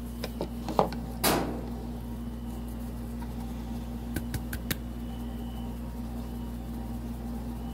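A bottle being handled and squeezed over a steady low hum: a few light clicks and knocks, and one short hissing squirt about a second in, as the contents struggle to come out.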